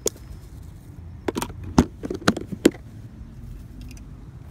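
A plastic tackle box being handled: a sharp click just at the start, then a quick run of about five hard clicks and knocks over a second and a half.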